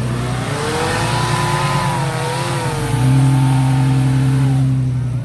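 Off-road 4x4's engine revving hard, its pitch climbing in the first second or so and then wavering. It grows louder about three seconds in and drops away near the end.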